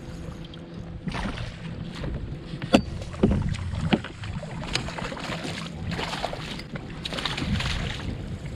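A hooked bass thrashing and splashing at the surface beside a kayak as it is scooped into a landing net. There are several sharp knocks, the loudest about three seconds in.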